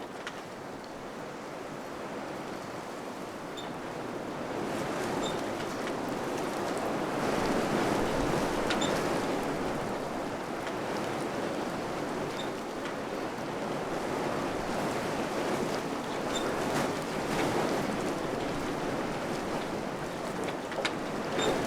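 Wind blowing in gusts: a steady rushing that swells and eases every several seconds, with a few faint scattered ticks.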